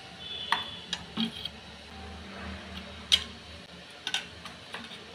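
Small stainless steel bowls clinking against a stainless steel plate as they are set down one by one: several sharp metal clinks, the loudest about three seconds in.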